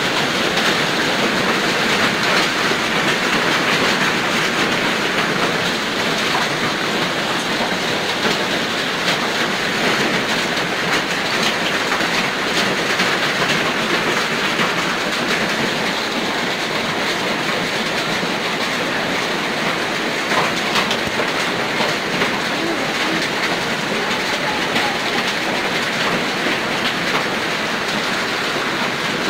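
Hail falling with heavy rain, a loud steady clatter with scattered sharp ticks of hailstones striking hard surfaces.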